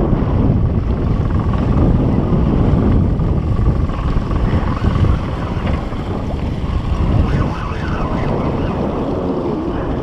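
Steady wind noise buffeting the microphone over the wash of choppy sea water around a small boat.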